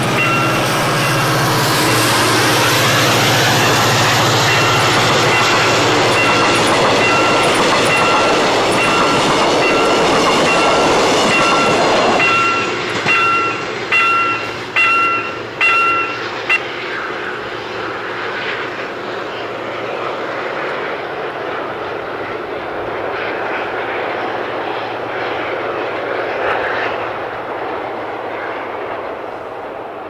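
Level-crossing warning bell dinging about twice a second while a train passes over the crossing with a loud rushing rumble. The rumble drops about twelve seconds in, and the bell stops some four seconds later as the crossing clears.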